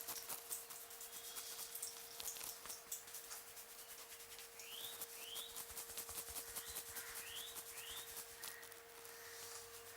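Hands rubbing and kneading hair and scalp in a head massage: a steady, crackly friction rustle.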